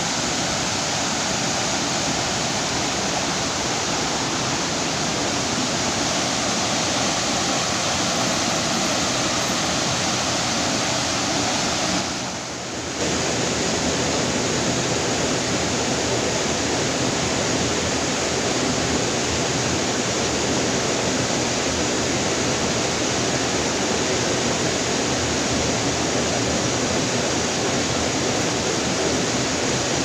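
Steady rush of water from a waterfall and its rocky stream, with a brief dip in level about twelve seconds in.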